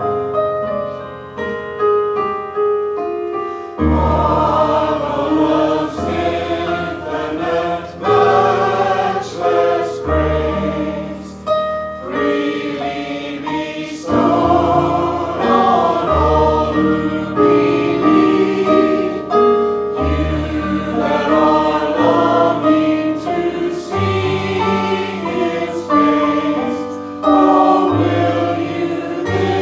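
A choir singing a hymn over instrumental accompaniment, with low bass notes changing every few seconds.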